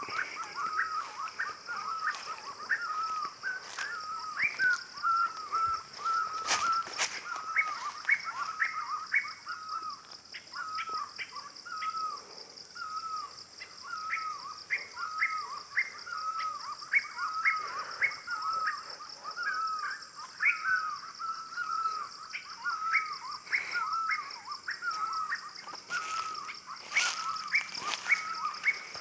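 A bird calling over and over in short hooked notes, about two or three a second, over a steady high-pitched drone. A few sharp clicks come around a quarter of the way in and again near the end.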